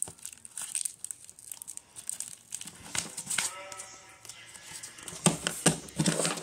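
Clear plastic and tape wrapping on a homemade paper figure crinkling as it is handled, in many short crackles.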